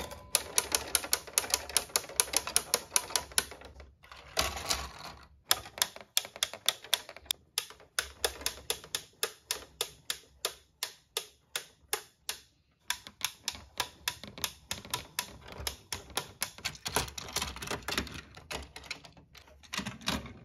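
Plastic toy tower-crane lift mechanism clicking rapidly and evenly, about five clicks a second, with a few short pauses, as the lift car carrying a toy vehicle is worked up the tower.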